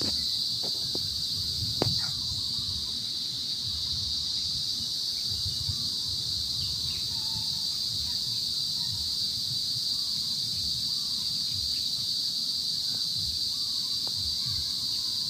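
Steady high-pitched chorus of insects: one unbroken drone with no pulses, over a faint low rumble of wind or handling, with a few faint ticks in the first two seconds.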